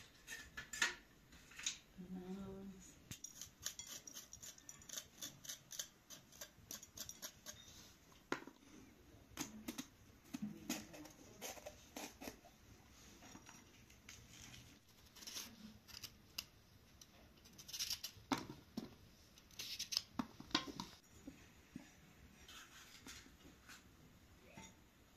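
A red bell pepper being cut into pieces by hand: short, crisp snips and crunches in irregular clusters, with a quick run of them early on.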